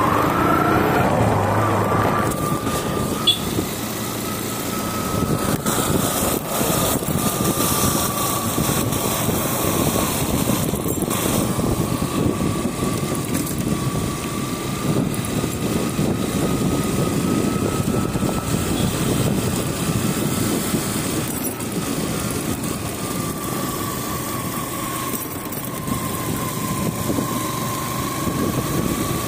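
Motorcycle engine running as the bike is ridden along at a steady pace, with wind noise. A tone in its sound drifts slowly up and down.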